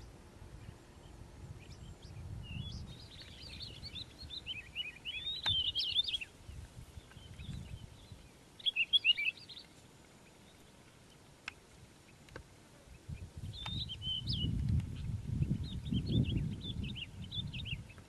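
Calandra lark singing in four short phrases of quick, jumbled high notes with pauses between them. A low rumble runs under the later phrases.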